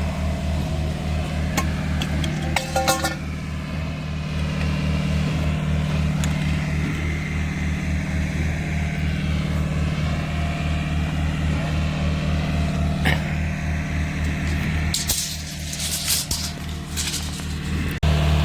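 Diesel engine of a concrete pump running steadily with a fast low pulse while it pumps concrete. Sharp metallic clinks come about three seconds in and again near the end.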